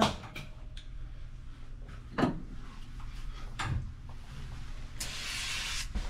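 A couple of light knocks from handling tools, then about five seconds in a hiss of an aerosol spray can being sprayed for cleaning, over a low steady hum.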